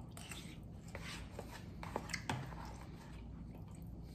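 A man chewing a forkful of soft taco, with faint wet mouth clicks and smacks, the sharpest a little after two seconds in.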